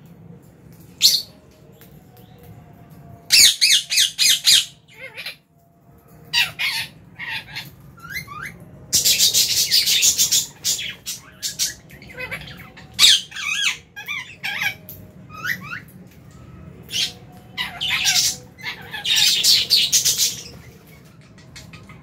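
A flock of lovebirds giving shrill squawks and chirps in irregular bunched bursts, the densest run about nine to eleven seconds in, over a low steady hum.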